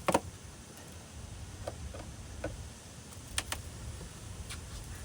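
A few scattered sharp clicks and light taps from handling honey-harvesting equipment, over a low background rumble. The loudest click comes right at the start, with two more close together about three and a half seconds in.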